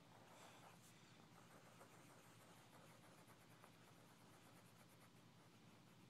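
Faint scratching of a graphite pencil on paper as it draws.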